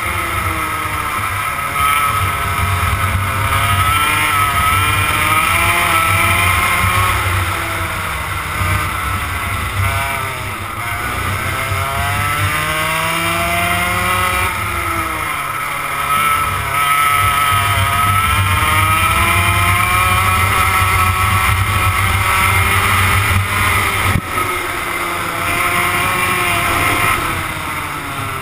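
A 100cc two-stroke go-kart engine heard from on board at racing speed, its revs rising and falling again and again through the corners and straights. Under it runs a steady low rumble of wind on the microphone, and near the end there is a single sharp knock.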